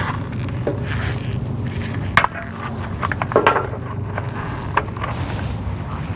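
A few sharp clicks and snaps of zip ties being undone from the wiring harness along a truck's frame rail, the loudest about two seconds in and a cluster about a second later. They sit over a steady low hum of highway traffic.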